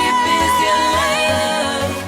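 Music: a song in which a singer holds a long wavering note, then moves on, over a steady bass beat.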